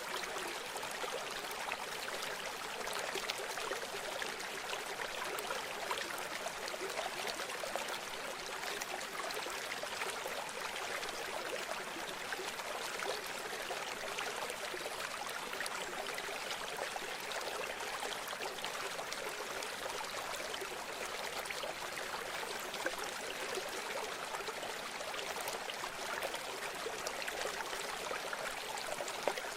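River water flowing and trickling steadily over stones, an even rushing babble with fine splashy detail.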